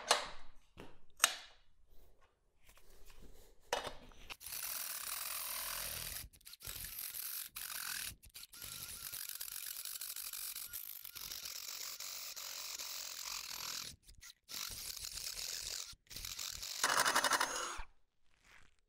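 Cordless drill driving a step drill bit through 16-gauge square steel tubing, cutting in several runs with short pauses as the hole is stepped up to about 1¼ inches. A few knocks come first, and there is a louder burst of cutting near the end.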